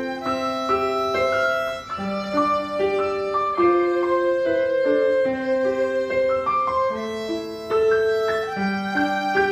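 A new violin bowed in a slow melody of held notes over a keyboard accompaniment. The player says the violin is a little out of tune.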